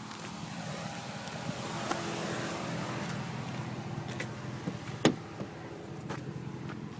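Vehicle engine running steadily, with a single sharp click about five seconds in.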